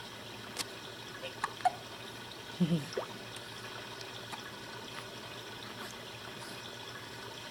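Baby sucking on a pacifier, giving soft wet clicks and smacks, with a few short sudden hiccup sounds, the sharpest about a second and a half in.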